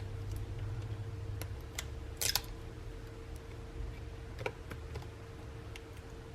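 Light, scattered clicks and taps of small tools and phone parts being handled during reassembly, with a short cluster of louder clicks about two seconds in, over a faint steady hum.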